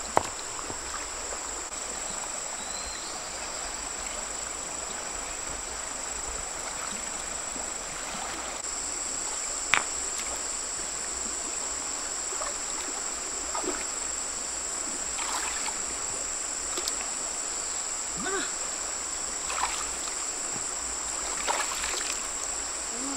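Steady high-pitched buzz of insects over the flow of a shallow stream, with a few small splashes as hands and legs move in the water.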